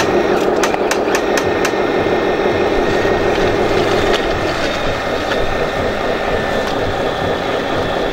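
Radio-controlled wheel loader working its bucket, its small electric hydraulic pump running with a thin steady whine that stops about four seconds in. A few sharp clicks and knocks come in the first two seconds.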